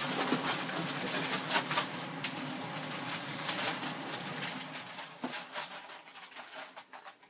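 Chicken wings shaken in a plastic zip-top bag of flour batter mix: a busy crinkling rustle of plastic with many small knocks, dying away about six seconds in.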